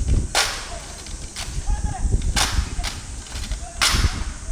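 Honor guard rifle drill: rifles slapped and struck in unison, giving three sharp cracks about one and a half to two seconds apart, with fainter clacks between.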